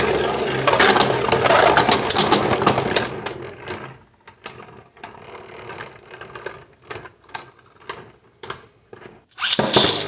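3D-printed Beyblade tops spinning and grinding against each other in a plastic stadium for about three seconds. This is followed by scattered sharp clicks and knocks, and another loud burst of clashing near the end.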